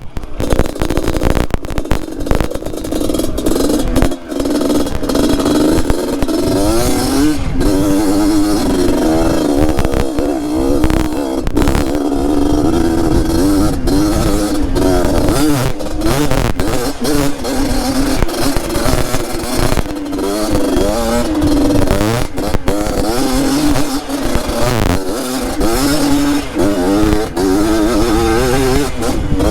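Yamaha DT trail motorcycle with a two-stroke RX-King engine, revving up and down as it rides a rocky trail. Frequent clatters and knocks run through it.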